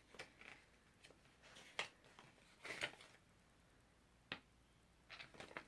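Quiet handling sounds of paper and card: a few sharp clicks and taps with faint rustling, as a tarot deck and its booklet and box are handled.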